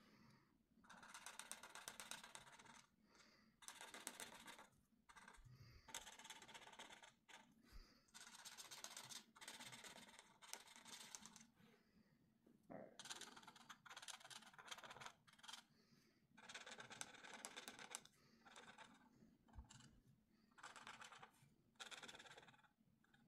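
Marker tip rubbing on colouring-book paper in short, scratchy strokes, coming in bursts of about a second with brief pauses between.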